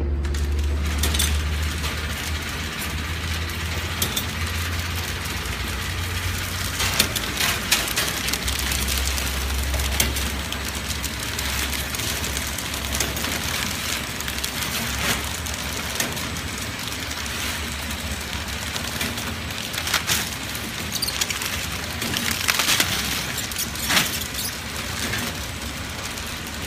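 Vegetable flow-wrap packaging machine running: a steady low mechanical hum with irregular clicks and clacks from its moving parts.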